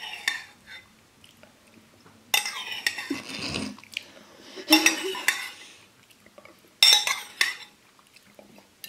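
A metal spoon clinking against a white ceramic bowl as the last of a soup is eaten: several sharp, ringing clinks a couple of seconds apart.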